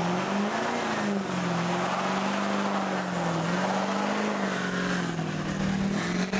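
Pickup truck doing a burnout, its engine held at high revs with the pitch wavering up and down as the rear tyres spin and squeal against the pavement.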